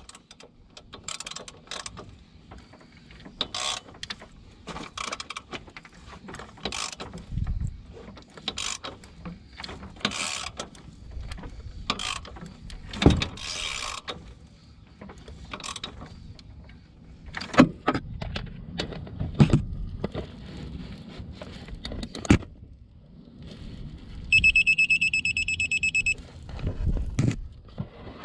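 Citroën 1.6 HDi diesel engine being turned over by hand with a ratchet on the crankshaft to check the new timing belt: repeated ratchet clicks and metal clatter about every second or so. Near the end, a rapid electronic beeping for about two seconds.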